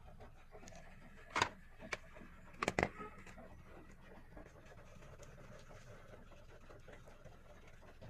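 Faint steady hum of a Skoda Fabia petrol engine idling, heard from inside the cabin, with a few short clicks and knocks about a second and a half in and again near three seconds.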